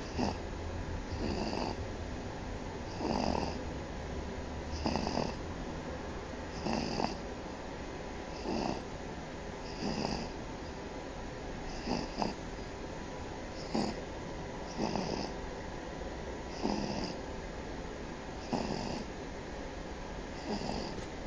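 A sleeping baby snoring: about a dozen short snores in an even rhythm, roughly one every one and a half to two seconds.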